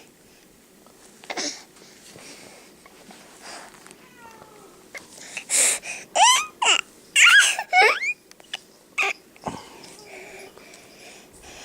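A young child babbling and squealing, with a burst of loud, high squeals that slide steeply up and down about six to eight seconds in.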